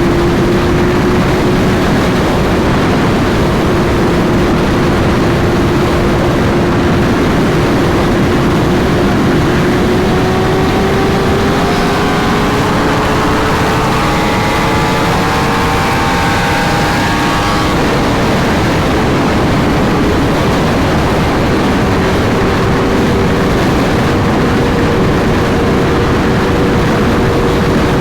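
Sport bike engine held at steady high revs at highway speed, under heavy wind rush; its pitch climbs slowly through the first half. From about ten to eighteen seconds in, a second, higher engine note rises alongside it, then fades.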